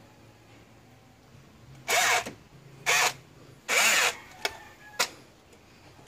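Three short bursts of a tool working the nut on a 4D56 diesel's glow plug wire and connecting plate, at about 2, 3 and 4 seconds in, followed by two light clicks.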